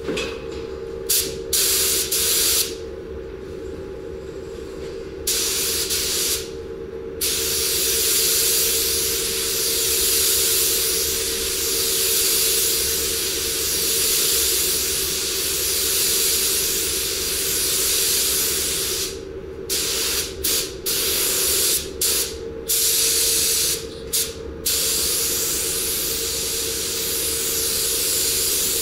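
Compressed-air spray gun hissing as clear coat is laid onto a car roof in passes. It comes in short bursts with the trigger let off between them at first, then runs in one long pass, breaks off briefly a few times about two-thirds of the way through, and runs on again, all over a steady hum.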